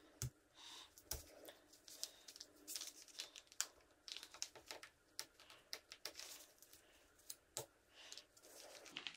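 Faint scraping, tearing and scattered small clicks of a screwdriver prying cut strips of adhesive pad out of a plastic GoPro mount, to open a channel for a zip tie.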